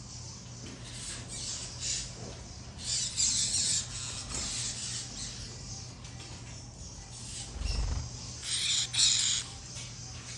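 Harsh squawks from caged lutino and cinnamon female birds: a few rasping calls, the loudest about three seconds in and again near the end, over a faint steady low hum.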